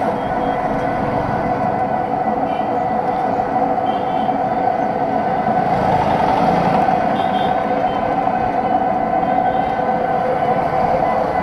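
Steady ride noise from inside an electric tuk tuk on the move: a held, even electric-motor whine over road and traffic noise, with a few short high chirps from the street.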